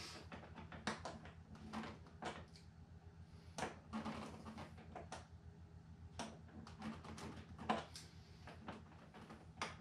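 Faint, irregular small clicks and taps of hands fitting a large RC plane tundra wheel onto its landing-gear axle and securing it, over a steady low hum.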